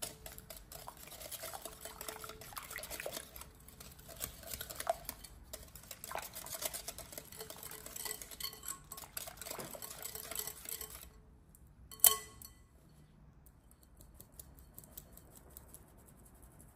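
Wire whisk beating a milk, sugar and yeast mixture in a glass bowl: a rapid, continuous clatter of metal wires against the glass for about eleven seconds. Then one sharp clink with a short ring, the loudest sound. Near the end comes a faint patter of flour being sifted through a mesh sieve.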